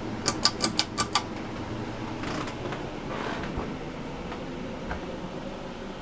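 Home Decorators Collection Windward ceiling fan running with a steady whir of motor and moving air. In the first second or so comes a quick run of about six sharp metallic clicks from the fan's pull chain.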